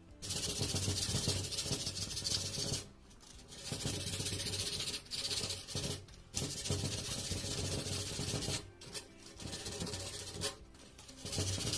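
Loud hissing in repeated bursts, cutting out briefly four or five times, with background music underneath.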